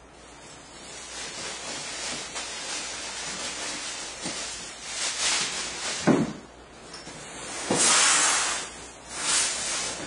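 Cardboard shipping box and a guitar soft case scraping and rustling as the case is pulled out of the box, with a short knock about six seconds in and louder scraping bursts near the end.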